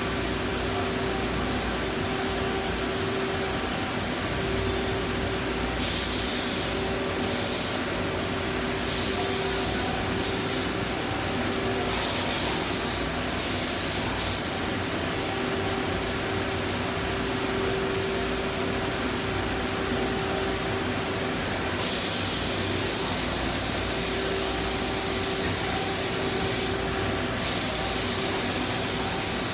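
Mazak CNC lathe running with a steady hum and a few held tones, broken several times by bursts of hissing spray that each last one to five seconds.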